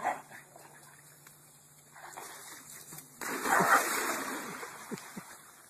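A corgi swimming in a backyard swimming pool, its paddling churning and splashing the water, loudest from about three seconds in. A brief sharp sound right at the start.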